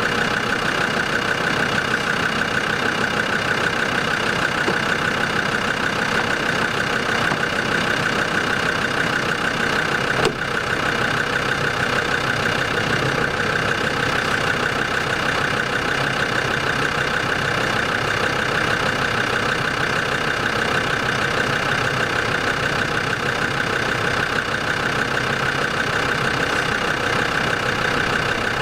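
Land Rover Discovery 2 Td5 five-cylinder turbodiesel idling steadily on fresh engine oil, described as quieter after the oil change. A single short click comes about ten seconds in.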